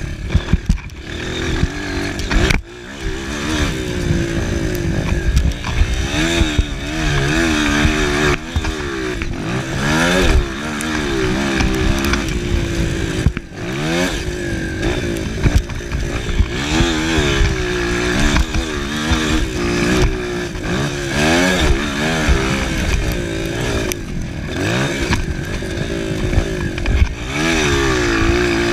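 Honda CRF230F dirt bike's air-cooled four-stroke single-cylinder engine being ridden hard, its pitch rising and falling again and again as the throttle is opened and shut through gear changes and corners, with a short drop in engine sound twice. Heard close up from the handlebars, with wind on the microphone.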